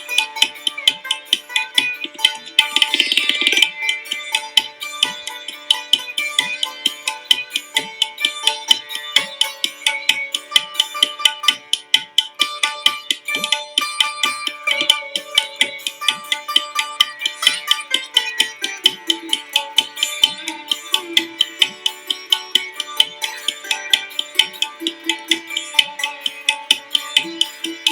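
Instrumental background music with a fast, steady percussion beat under a plucked-string melody.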